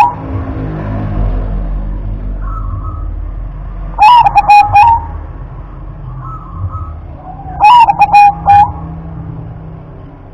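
Zebra dove (perkutut) singing its cooing song, each phrase about a second long: a run of short staccato notes followed by a held note. Two full phrases come about four seconds apart, over a low steady background rumble.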